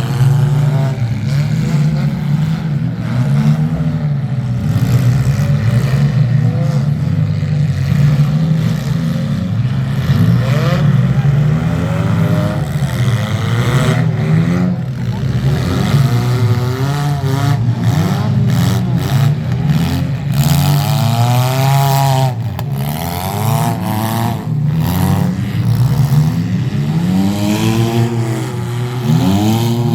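Several demolition derby cars' engines revving up and down over one another, loud and continuous, with no break.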